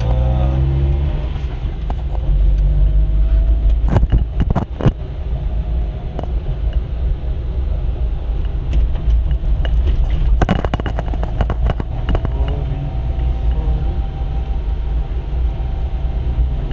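Car driving along a road: a steady low rumble of engine and tyres, with short clusters of clicks and knocks about four seconds in and again around ten to twelve seconds in.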